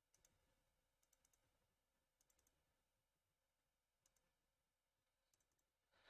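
Near silence, with a few very faint computer mouse clicks, single and in small clusters, while shape points are placed with Illustrator's curvature tool.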